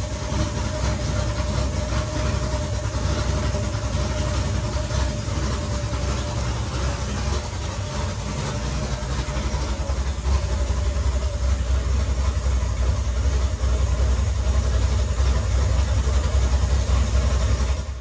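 Chevrolet S10's swapped-in 5.3-litre LS V8 running at idle as the truck is backed out of the garage, a steady low rumble.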